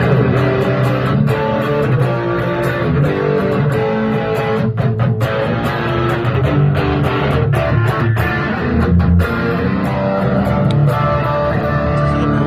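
Electric guitar played through a mini 8 W analog pedal amplifier, a continuous passage of notes and chords.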